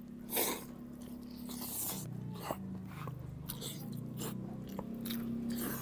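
Close-up eating sounds of a person biting into crispy fried chicken: one loud bite about half a second in, then repeated crunching and chewing of the crisp skin.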